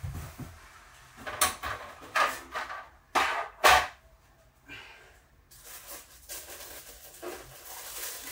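Packaging being handled as statue parts are taken out of the box: four or five short scraping rustles, the loudest two a little past the middle.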